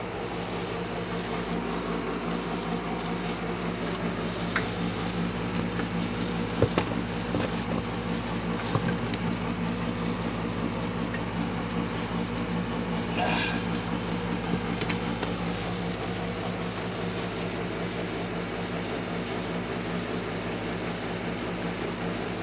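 Steady low machine hum, unchanged throughout, with a few faint clicks and knocks scattered through it and a brief higher-pitched sound about halfway.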